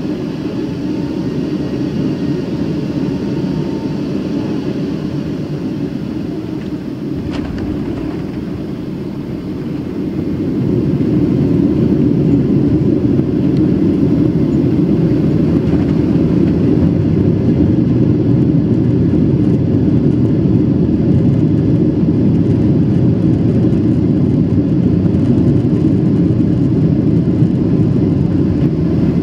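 Airliner cabin noise during landing: a steady rumble of engines and airflow, a brief thump about seven seconds in as the wheels touch down, then a louder rumble from about ten seconds in as the plane rolls out along the runway.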